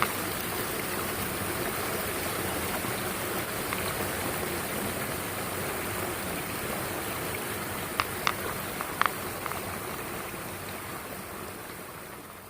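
Mountain stream rushing steadily over rocks, fading down near the end. A few sharp clicks sound about eight to nine seconds in.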